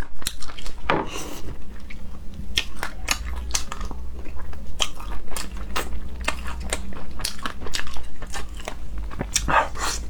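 Close-up chewing and mouth sounds of someone eating a spicy braised rabbit head: many quick wet clicks, smacks and small crunches. Two longer noisy sucking sounds come about a second in and near the end.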